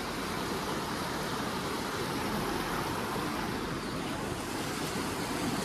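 Fast-flowing mountain river rushing over rocks in white-water rapids, a steady, even sound of water close by.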